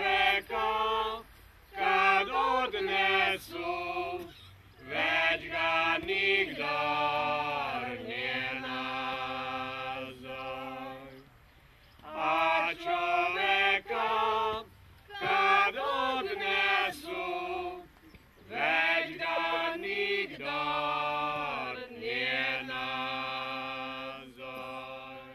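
A small mixed group of men and women singing together without instruments, in slow phrases that each end on a long held note, with short pauses between them. The singing stops at the end of the last phrase.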